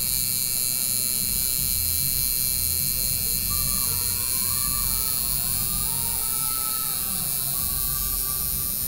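Electric tattoo machine running with a steady buzz while the needle puts red ink into the skin of a wrist.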